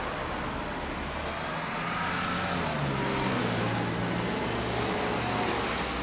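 Suzuki GSX1400 (GY71A) 1400 cc air/oil-cooled inline-four with a Baby Face exhaust, idling steadily with a low, even exhaust note.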